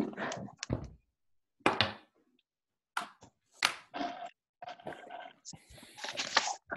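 Irregular short knocks and rustles, with dead silence between them.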